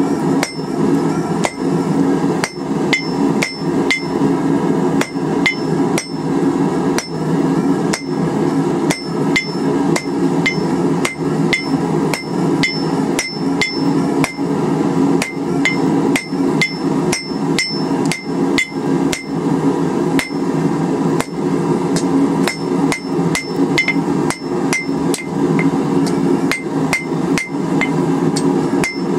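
Blacksmith's hammer striking a red-hot quarter-inch steel bar over the anvil horn, drawing out a taper: a steady run of blows at about two to three a second, each with a short metallic ring. A steady low hum runs underneath.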